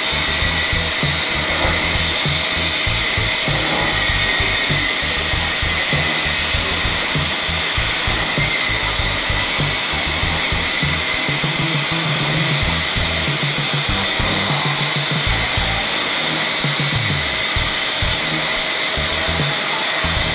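CNC machining centre running steadily, a loud continuous hiss with a high, even whine as it mills a mould.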